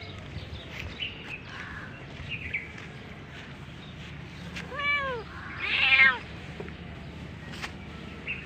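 A feral cat meows twice, about five seconds in; the second meow is longer and louder.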